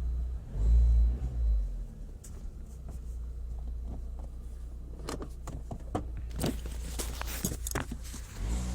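Opel Z20LER 2.0 turbo four-cylinder running cold, with a brief rise in engine sound about a second in and another near the end; its exhaust manifold gasket is leaking because a manifold bolt has worked loose. A run of irregular sharp clicks sounds from about the middle to near the end.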